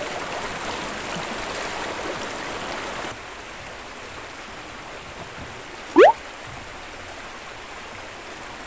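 Creek water rushing over rocks, a steady noise that drops to a quieter level about three seconds in. About six seconds in, a brief loud whistle-like sound glides sharply upward.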